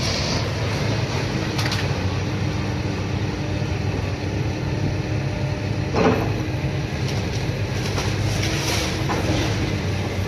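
Hydraulic excavator's diesel engine running steadily under load as its grapple tears into a wooden building, with a few sharp cracks and crashes of breaking timber, the loudest about six seconds in.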